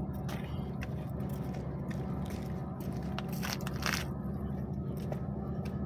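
Steady low rumble of distant traffic, with scattered soft crackles and rustles from a small open fire being fanned with a piece of cardboard.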